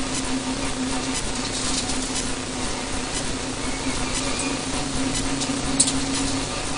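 Cabin sound of a Renault Mégane RS N4 rally car at speed on a stage: its turbocharged four-cylinder engine running at a steady high note under a constant wash of road and tyre noise, the note dropping out briefly about a second in and again near the end. A single sharp click a little before six seconds.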